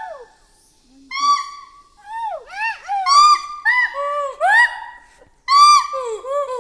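Monkey singing: short whooping whistled notes that rise and fall in pitch, coming in quick overlapping runs. After a brief lull near the start, the calls build up and keep going, loudest a little past the middle.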